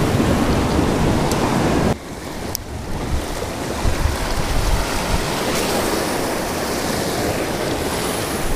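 Ocean surf washing over lava rocks, a steady rush of water with wind buffeting the microphone. It drops to a softer level about two seconds in.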